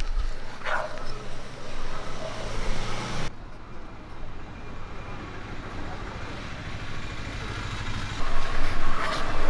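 A plastic spatula stirring thick, milky semiya payasam in a non-stick pan, with a light knock against the pan near the start. A steady low rumble of background traffic-like noise runs underneath.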